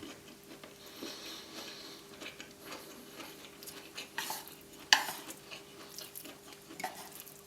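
Eating utensils scraping and clinking against a plate of food, in scattered short strokes, with one sharp clink about five seconds in.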